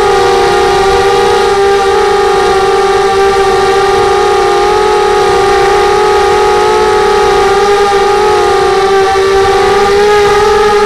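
FPV racing quadcopter's brushless motors and propellers whining, heard loud and close from the drone's own onboard camera. It holds a steady high whine made of several tones, with the pitch wavering slightly as the throttle shifts.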